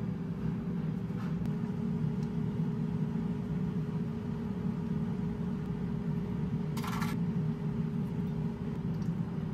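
A steady low mechanical hum with a faint steady tone in it, and a short hiss about seven seconds in.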